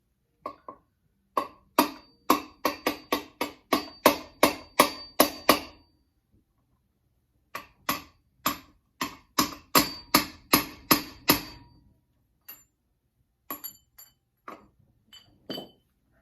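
Hammer striking a grinding disc laid over a hub grease seal, driving the seal into a wheel hub in place of a proper seal driver. Two runs of quick, ringing metal-on-metal blows, about three a second, then a few lighter taps near the end to square it up.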